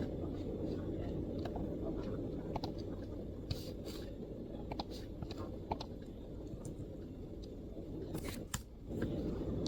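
MacBook keyboard keystrokes: scattered short clicks at irregular spacing, a couple sharper ones near the middle and toward the end, over a steady low background rumble.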